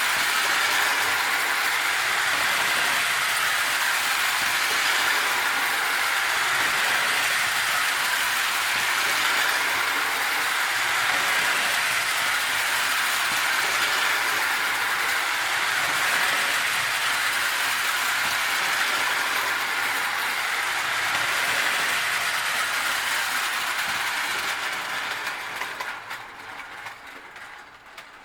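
Hafner clockwork toy train running: a steady whir from its wound-spring motor and gears with the wheels clattering along the track, dying away near the end as the run ends.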